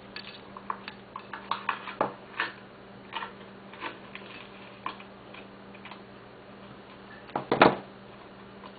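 Scattered light clicks and taps of small hard objects being handled on a work surface, thick in the first few seconds and then sparser, with a louder clatter about seven and a half seconds in. A faint low steady hum runs underneath.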